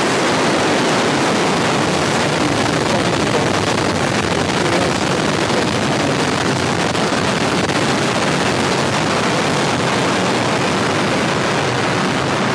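Long March 3B rocket engines at liftoff and during the climb away: a loud, steady rushing noise that does not change.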